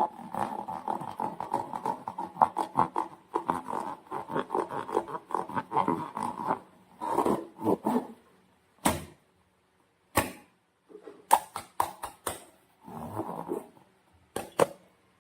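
Sticky slime being squeezed and worked by hand, a dense run of small wet crackles and squelches that breaks up after about six seconds into separate squishes and clicks with short pauses between them.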